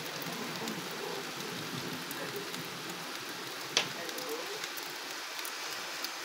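Thunderstorm rain falling: a steady hiss with scattered drop ticks, and one sharp tap a little under four seconds in.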